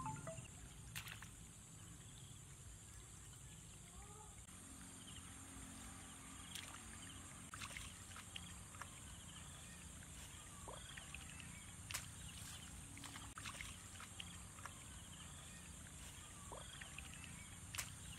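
Faint outdoor ambience: a steady high insect drone, with scattered short chirps and a few light knocks and splashes as bamboo fish traps are handled and set in shallow muddy water.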